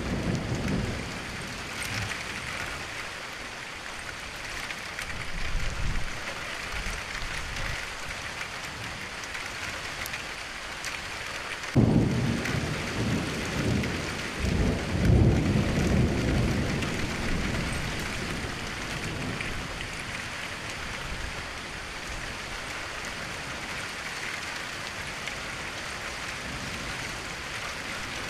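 Steady rain falling, with thunder: a few low rumbles in the first seconds, then a sharp thunderclap about twelve seconds in that rolls on for several seconds before the rain is left alone.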